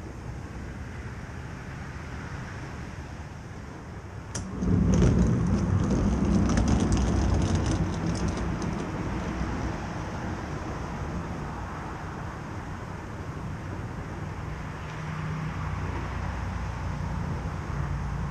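An engine running with a steady low hum. About four and a half seconds in it gets louder, with a few sharp clicks, then eases back.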